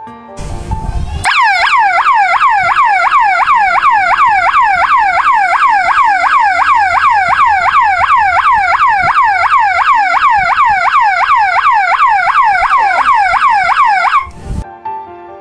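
12-volt alarm siren horn sounding once the alarm is triggered: a loud electronic wail of rapid falling-pitch sweeps repeating a few times a second. It starts with a brief noisy burst and cuts off suddenly about 14 seconds in, as the 12-volt delay relay switches the alarm outputs off.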